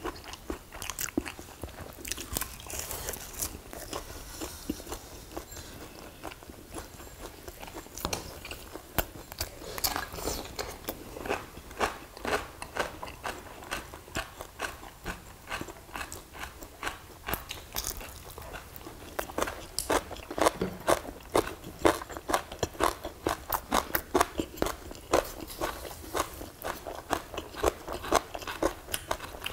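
People chewing and crunching food close to the microphone: a run of short crisp crunches and chewing sounds, sparse at first and coming thick and fast from about a third of the way in.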